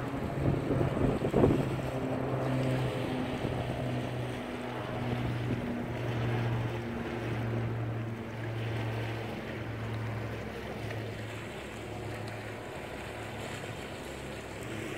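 Engine of a small passenger boat running as it pulls away, a low throbbing hum that slowly fades. Wind is on the microphone throughout, with a louder gust about a second in.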